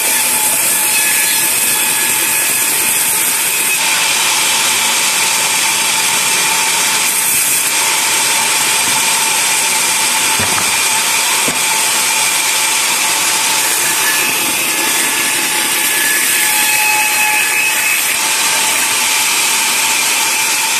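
Band sawmill running and sawing through a log: a loud, steady rushing noise with a high, even whine from the blade.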